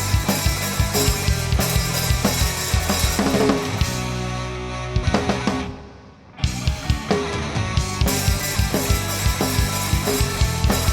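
Instrumental band playing: drum kit beating a steady rhythm under guitars and bass. About four seconds in the drums thin out over a held chord, the music drops away briefly near six seconds, and the full band comes back in.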